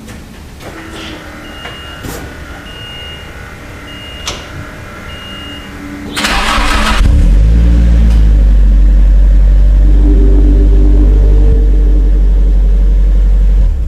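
Nissan Silvia S14's SR20DET turbocharged four-cylinder engine being started on a freshly fitted set of spark plugs, meant to cure a misfire. About six seconds in there is a short loud burst as it cranks and catches, then the engine runs loudly and steadily.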